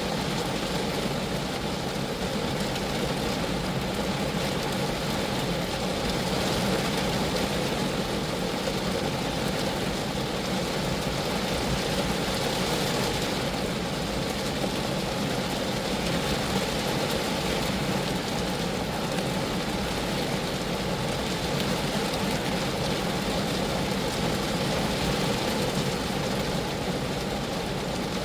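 Steady rain falling on the body of a Geo Metro, a continuous even patter of drops on the car's metal and glass.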